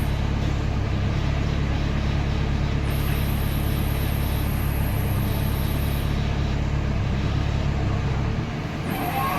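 Heavy diesel engine running steadily with a deep hum, its low rumble dropping away about eight seconds in.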